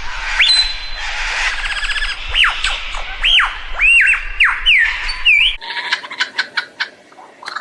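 A bird whistling a series of clear, arching notes that rise and then fall, with a short fast trill among them. In the last two seconds this gives way to a run of sharp clicks.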